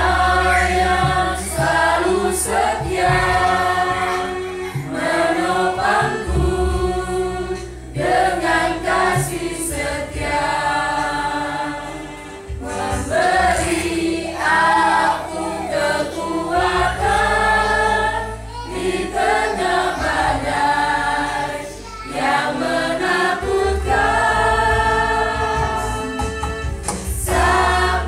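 Small mixed choir of men's and women's voices singing together at a rehearsal, in phrases broken by short pauses for breath every few seconds.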